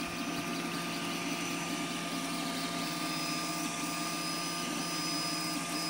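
MakerGear M2 3D printer running a print: its cooling fans and stepper motors make a steady whir as the print head moves over the part.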